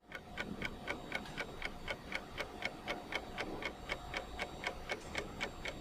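Steady, evenly spaced ticking, about four ticks a second, with a faint steady tone underneath.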